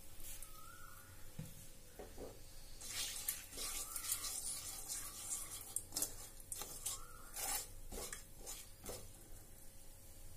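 Silicone spatula stirring and scraping around a nonstick kadai of hot mustard oil with cumin seeds and a dry red chilli, the oil sizzling quietly. Short scrapes and taps come repeatedly from about two seconds in as the tempering is stirred with salt.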